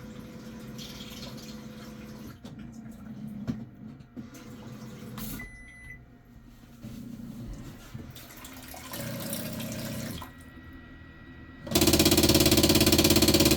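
Panasonic Alauno CH1302WS toilet running its bidet nozzle-cleaning cycle: a low motor hum, a short beep, a spray of water, then a loud, rapid rattling buzz for the last two seconds. That buzz is the abnormal noise the toilet makes during nozzle cleaning, a fault in internal parts that were later replaced.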